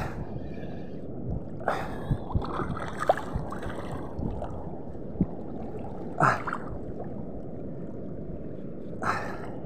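Steady rush of water and wind, with a few short clicks and knocks scattered through.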